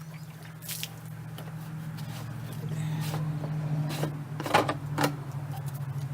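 A motor engine running steadily with a low, evenly pulsing hum that grows a little louder about two seconds in. A few sharp knocks or clicks sound over it, the loudest two close together near the end.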